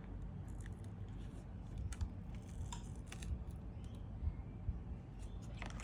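A few faint, irregular clicks and scrapes of a plastic guitar pick being worked under a phone's glued back glass, prying the adhesive seal loose.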